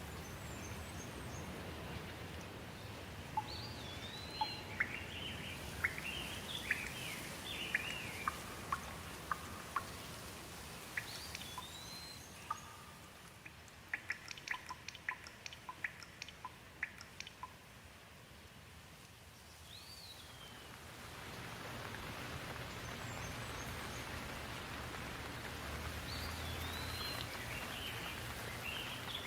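Steady rain falling with birds chirping over it in short sweeping calls. Around the middle come a run of short sharp ticks, then the rain eases for a few seconds and swells again.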